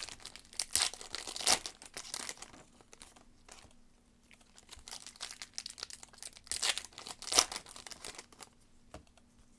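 Trading-card pack wrappers crinkling and tearing as cards are handled and slid through the hands, in irregular bursts of rustling with a quieter stretch in the middle.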